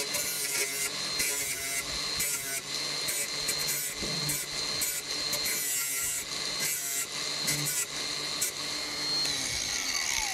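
Cordless angle grinder running and cutting through a sail track, the cutting hiss swelling and fading as the disc bites in repeated passes. Near the end the grinder is switched off and its motor winds down with a falling whine.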